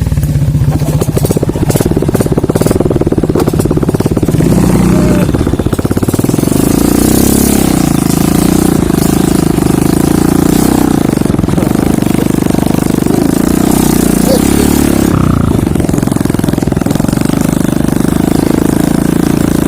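Motorcycle engine running while riding, steady throughout, its sound growing fuller about six seconds in.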